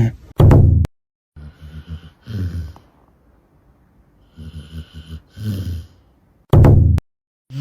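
Dogs snoring: bouts of rasping snore breaths, with two louder short snores, one about half a second in and one near the end. There are two brief spots of total silence.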